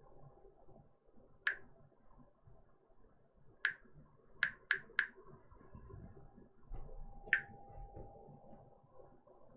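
Six short, sharp clicks, three of them in quick succession about four and a half seconds in, with a faint steady hum starting about two thirds of the way through.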